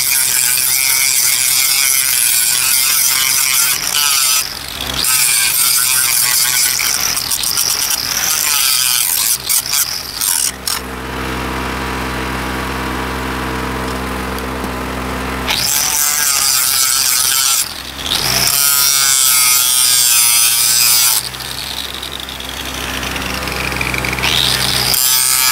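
Angle grinder grinding on steel rail in several long runs, its motor whine wavering as it bites. The runs are broken by short pauses and one longer pause of about five seconds in the middle, where only a steady low machine hum is heard.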